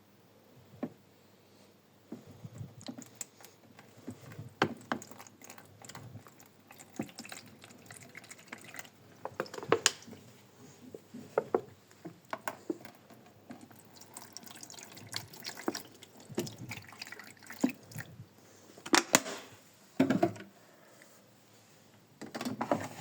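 Water splashing and dripping in irregular spurts, with knocks and clatter, during cleaning of a washing machine drum.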